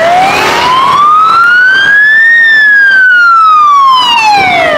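Wailing ambulance siren: one slow sweep whose pitch rises for about two and a half seconds, then falls back near the end.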